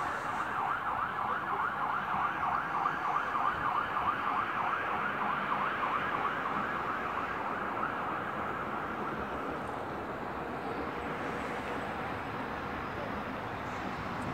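An emergency-vehicle siren sounding in a fast, repeating yelp, fading away about eight or nine seconds in, over a steady hum of city traffic.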